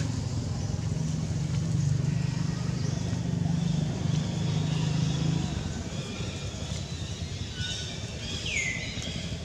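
Low steady hum of a motor vehicle engine that stops about halfway through. Near the end there is a short falling chirp.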